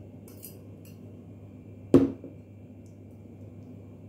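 Metal spoon clinking lightly against a ceramic bowl, then about two seconds in a single sharp knock as the bowl is set down on the table.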